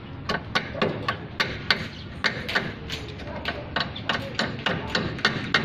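Hammer blows on metal parts of a car's rear suspension, quick sharp strikes about three to four a second, unevenly spaced, each with a short ring: knocking a part loose while stripping the suspension.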